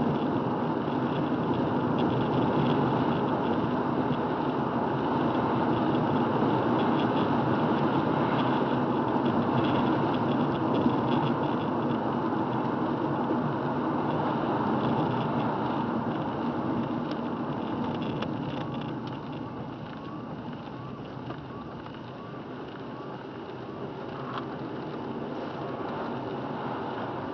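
Car driving on a wet road, heard from inside the cabin: steady tyre and road noise with the engine running. It gets quieter about two-thirds of the way through.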